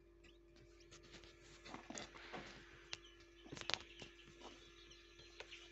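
Faint, scattered taps and scratches of northern bobwhite chicks pecking and stepping on paper-lined brooder floor strewn with feed, with a few faint peeps and a steady hum underneath. A sharper cluster of taps comes about three and a half seconds in.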